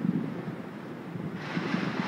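Distant massed fireworks and firecrackers going off across a city, merging into a continuous crackling rumble, with a brighter hiss building about a second and a half in.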